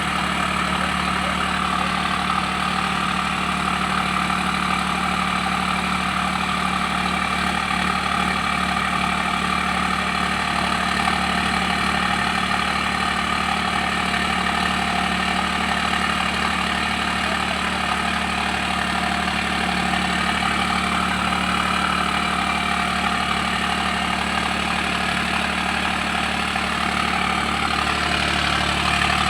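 Bulldozer's diesel engine running steadily near idle, getting slightly louder near the end.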